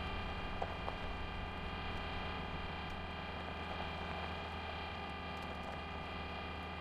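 A steady drone of many held tones.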